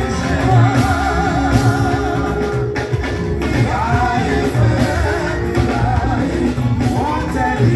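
Church service music: singing over instrumental backing with a low, pulsing bass line.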